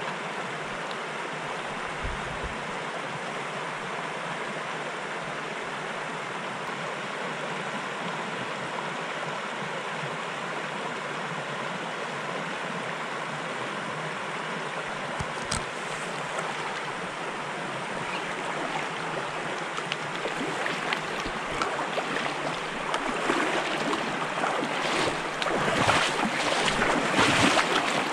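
Trout stream water running steadily over a riffle. Over the last ten seconds it grows louder and splashier.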